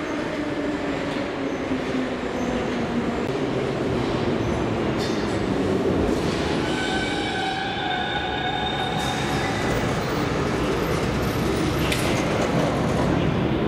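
Metro train running through the station, a continuous loud rumble with a low drone that falls in pitch over the first few seconds. High wheel squeal rings out from about six to nine seconds in.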